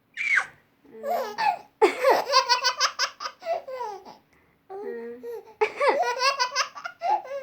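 A baby laughing at its mother's coughing, in two long runs of quick, high-pitched belly laughs: one about two seconds in and another near six seconds.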